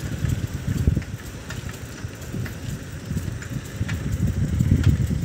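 Wind buffeting a phone microphone on a moving bicycle, a fluctuating low rumble with scattered faint ticks and rattles from the bike.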